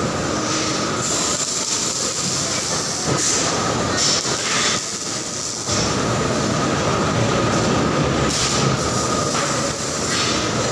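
Arc welding on a steel seat-frame fixture: a continuous crackling hiss from the welding arc, with a brief pause about five seconds in and a steady high whine underneath.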